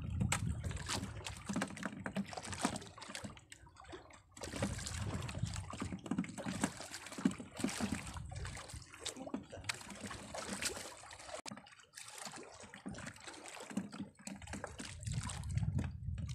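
Sea water sloshing and splashing against the hull of a small outrigger fishing boat, in irregular surges.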